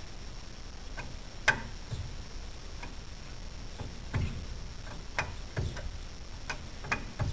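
Scattered sharp clicks and light knocks, about nine at irregular spacing, the loudest about one and a half seconds in.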